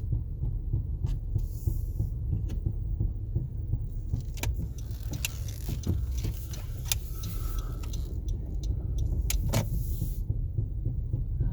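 2019 Honda CR-V running, heard from inside the cabin: a steady low rumble with irregular sharp knocks. These are the thud noise the owner is recording for the dealership as a fault.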